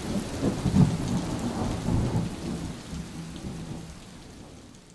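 Thunderstorm sound effect: steady rain with low rolling rumbles of thunder, fading out gradually over the last few seconds.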